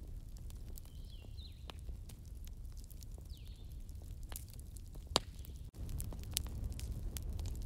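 Ambience track of a daytime forest bonfire: crackling pops from the fire over a low steady rumble, with a few short falling bird chirps in the first half. The track cuts out for a split second about two-thirds of the way through, then resumes.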